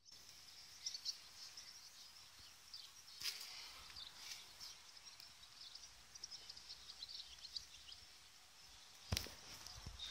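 Faint birds chirping in the background, with two sharp knocks, one about three seconds in and a louder one about nine seconds in.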